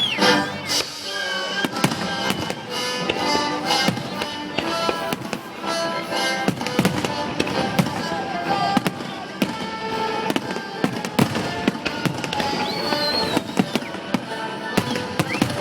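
Fireworks exploring in a rapid string of sharp bangs and crackles, over music playing with sustained tones.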